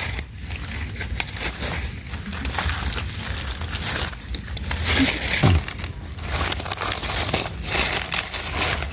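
Dry fallen leaves crackling and crinkling as hands rummage through the leaf litter to pick a cluster of wild mushrooms, in irregular rustles and snaps. A brief low sound falls in pitch a little past halfway.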